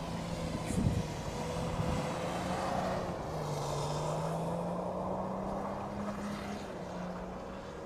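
BMW sedan's engine running hard while the car drifts on snow, its pitch climbing slowly for a few seconds and fading as the car pulls away. A brief thump comes about a second in.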